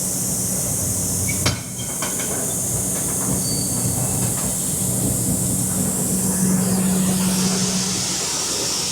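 Wheat pouring out of a hopper trailer's bottom doors into a receiving pit: a steady hiss of running grain over a steady engine hum, with one sharp knock about a second and a half in.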